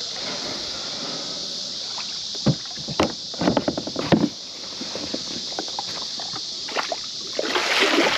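Kayak paddling: the paddle splashes and knocks against the plastic hull, with a cluster of sharp knocks a few seconds in and a louder rush of water near the end. A steady high hiss runs underneath.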